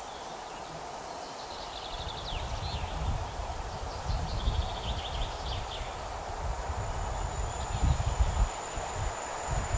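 Wind gusting on the microphone, with birds chirping a few times in the first half. About seven seconds in, a high steady whine begins as a Bombardier Traxx electric locomotive approaches in the distance.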